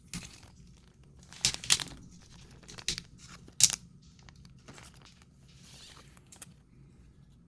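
Trading cards and their packaging being handled: a few short, sharp papery rustles in the first four seconds, then a softer rustle.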